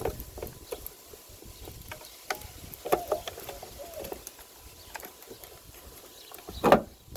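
Scattered light plastic clicks and rubbing as a turn signal bulb socket is worked and twisted back into a car's taillight housing, with one louder thump near the end.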